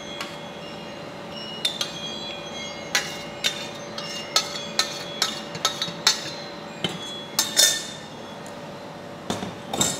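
Stainless steel pot knocking and clinking against a stainless steel mixing bowl as thick sauce is poured out of it: about a dozen sharp, ringing metal taps in an uneven run, with one louder clatter a little before the end. A faint steady hum runs underneath.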